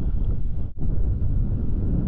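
Wind buffeting the microphone of a camera carried by a skier running downhill: a steady low rumble, with a brief dropout about three-quarters of a second in.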